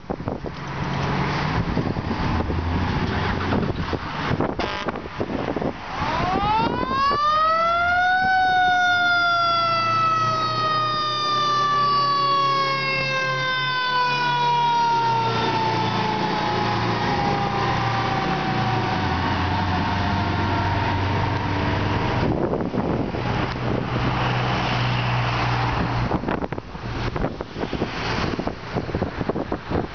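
Fire truck siren winds up sharply in about two seconds, then slowly falls in pitch over some fourteen seconds, over the steady low rumble of the aerial ladder truck's diesel engine as it pulls out. Near the end a passing car is heard.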